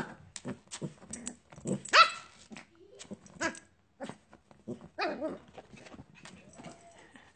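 Small dogs barking and yipping in a string of short yaps, the loudest about two seconds in and another drawn-out yip around five seconds.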